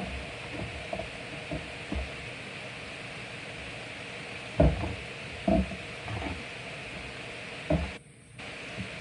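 Hands patting and pressing pieces of fish into a dry crumb coating on a plate: soft dull knocks and rustling, with three louder thumps in the second half, over a steady hiss.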